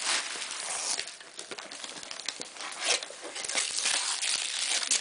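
Gift wrapping paper being torn and crinkled by hand: an irregular run of rustles and short rips.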